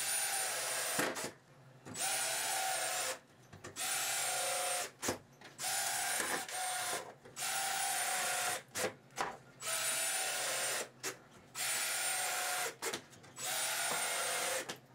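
Cordless DeWalt drill/driver driving screws into cement board: about nine short runs of about a second each, with brief pauses between, each run spinning up with a short rising whine.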